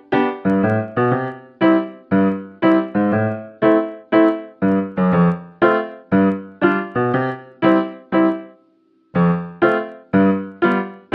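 Background music: piano-style keyboard chords struck in a steady rhythm, about two a second, each dying away, with a short pause about three-quarters of the way through.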